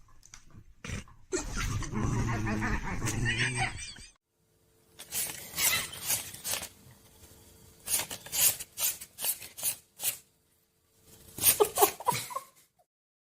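A dog vocalising, with some wavy pitched sounds in the first few seconds. The sound breaks off about four seconds in, and short scattered sounds follow over a faint steady hum.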